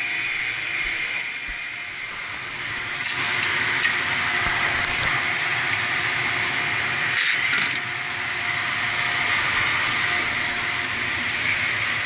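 Steady hum and hiss of boiler-room machinery running. A few light clicks come around three to four seconds in, and a brief, half-second burst of higher hiss comes about seven seconds in.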